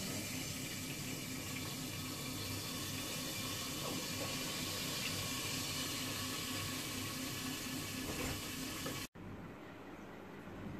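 A steady rushing noise with a faint low hum underneath, which cuts off abruptly about nine seconds in, leaving quiet room tone.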